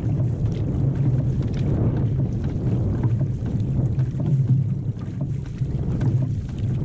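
Water rushing and splashing along the hull of an outrigger canoe under paddle, with wind on the microphone and a steady low hum throughout.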